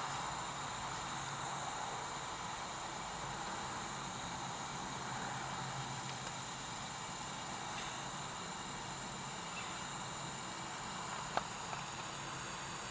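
Soldering gun running steadily as it heats toward red hot, a constant hiss with a faint low hum. One small click about 11 seconds in.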